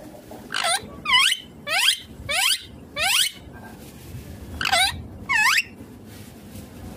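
Indian ringneck parakeet calling: seven short, high-pitched squawks, each sweeping down in pitch and hooking at the end. They come in two runs, with a pause of about a second and a half in the middle.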